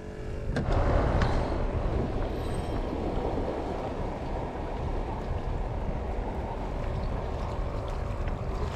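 Steady low rushing noise of wind and water on a kayak, starting abruptly with a knock about half a second in.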